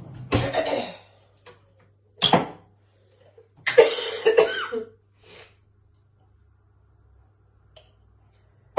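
A person coughing: four short bouts in the first five or six seconds, the third the longest. This is someone with a bad cough.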